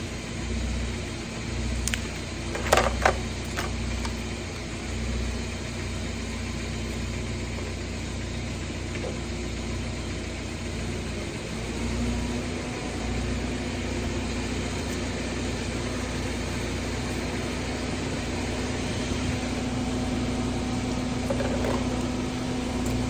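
Steady low hum of a car engine idling, with a couple of sharp knocks about three seconds in.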